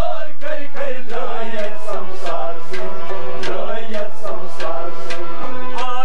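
A harmonium and a rubab playing a melody together, with hand-drum strokes keeping a steady beat.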